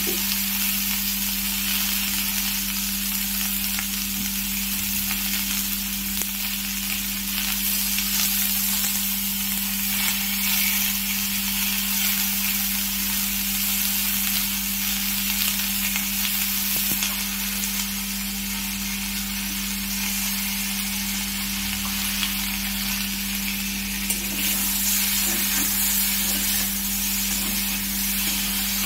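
Drumstick, brinjal and tomato pieces sizzling steadily as they fry in oil in an iron kadai, with a metal spatula stirring and scraping them near the end. A steady low hum runs underneath.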